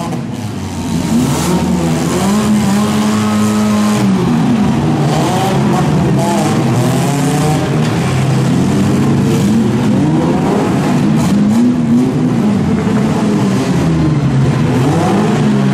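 Several four-cylinder demolition derby cars running and revving together, their engine notes overlapping and rising and falling in pitch as they accelerate and back off.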